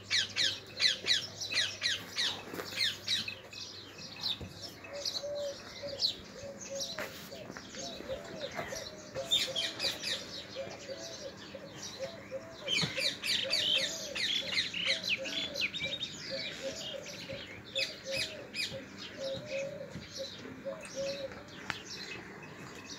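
Small birds chirping in quick runs of short, falling chirps, loudest at the start and again about halfway through, with a lower note repeating a little over once a second through the middle.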